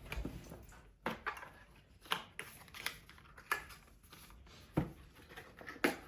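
Irregular clicks and rustles, about eight sharp ones, of objects being handled close to the microphone.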